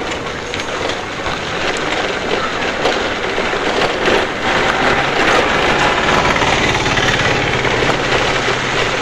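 Tunwal Elektrika e-bike ridden over a rough, broken road: wind rushing over the microphone with steady rattling and jolting from the bike's body. A low steady hum joins about halfway through.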